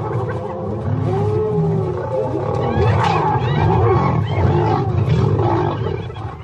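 Lions growling in a fight with spotted hyenas, whose many overlapping calls rise and fall over the growls.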